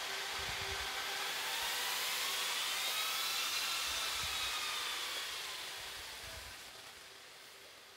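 Server rack cooling fans running, a steady hiss with a faint whine that bends up and then down in pitch, fading away over the last few seconds. A few soft low thumps sound underneath.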